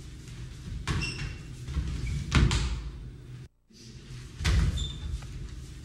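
Wrestlers grappling on a mat: several heavy thuds of bodies and feet hitting the mat, the loudest about two and a half seconds in, with short squeaks of wrestling shoes. The sound cuts out for a moment about three and a half seconds in, then the thuds and squeaks resume.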